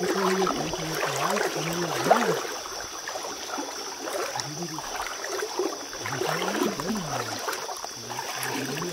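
River water running and trickling, with faint, indistinct voices at times and a steady high whine.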